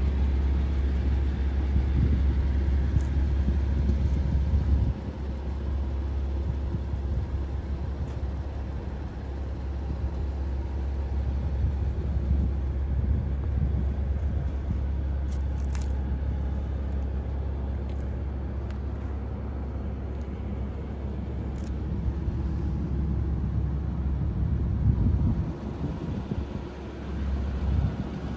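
Porsche Boxster's flat-six engine idling with a steady low rumble, heard from outside the car. It is louder at first and drops about five seconds in.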